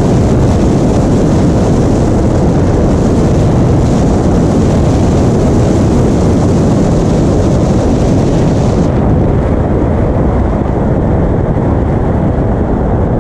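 Toyota Tacoma off-road rally truck driving fast on a desert dirt track: a loud, steady rumble of the truck at speed with wind rushing over the hood-mounted microphone. About nine seconds in the sound turns duller as the high hiss drops away.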